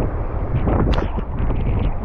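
Wind buffeting the microphone over the wash of small surf waves breaking on the sand, with a single sharp click about a second in.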